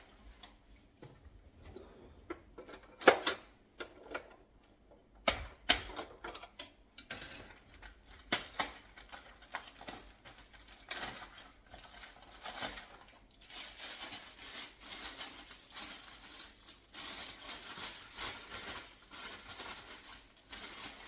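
Kitchen handling sounds while raw chicken gizzards are washed: scattered sharp clinks and knocks of a bowl and utensils, then a steadier patter in the second half.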